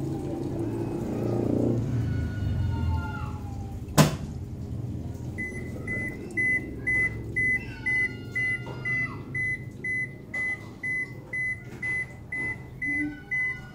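Toshiba AW-A750SM top-loading washing machine at the end of its cycle: a low motor hum, a sharp click about four seconds in, then the end-of-cycle alert, a long regular train of short high beeps.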